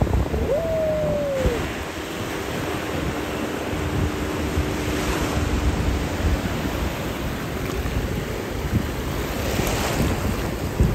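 Sea waves breaking and washing up over sand, a steady rush of surf with wind buffeting the microphone. A brief falling tone sounds about a second in.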